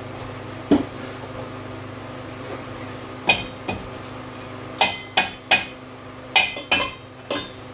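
Sharp metallic knocks and clinks, each with a brief ring: one, then a run of eight more from about three seconds in. They come as a metal part carrying the fan clutch studs is worked loose and pulled off the front of a Chevy 350 small-block's water pump.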